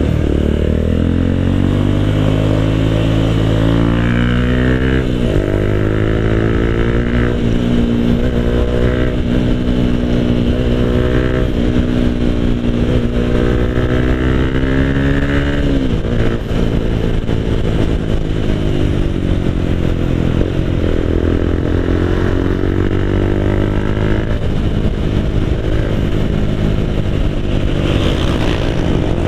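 Motorcycle engine and exhaust heard from the rider's seat under way: the engine note climbs under throttle, drops sharply about five seconds in and again about sixteen seconds in, then climbs again later.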